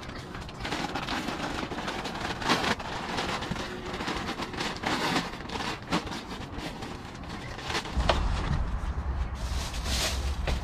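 Tent fabric rustling and crinkling, with scattered clicks, as a pop-up tent is folded down and pushed into its bag. About eight seconds in a low rumble sets in under the rustling.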